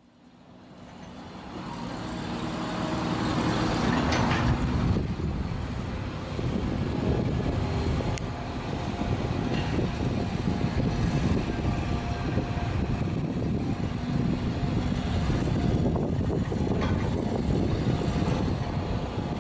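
Excavator engines running at a steady hum, fading in over the first couple of seconds, with a louder noisy swell about four seconds in.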